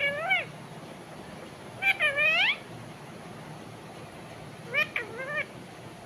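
Rose-ringed parakeet calling. A short call comes right at the start, then a longer drawn-out call about two seconds in whose pitch dips and rises again, then a quick run of short notes around five seconds in.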